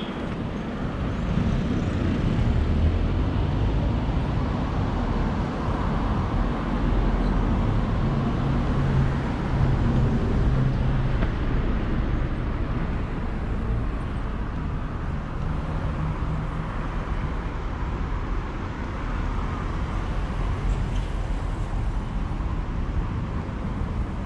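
Road traffic on a city street: motor vehicles passing in a steady rush of noise, with a low engine drone strongest around the middle.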